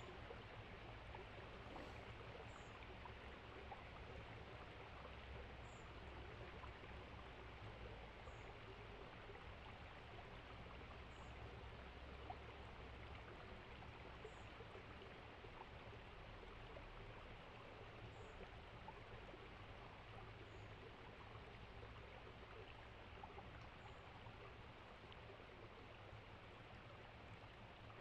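Faint, steady rush of running water, like a small stream, with a faint high chirp about every three seconds.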